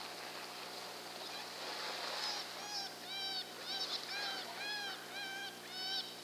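Coyotes yipping from a distance: a run of eight or nine short, high, rising-and-falling yelps, starting about two seconds in, in answer to calling.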